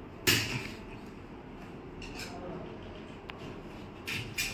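Handling noise at a workbench: a loud scuffing knock about a quarter second in, a faint click around three seconds, and two short scuffs near the end, over a low steady room hum.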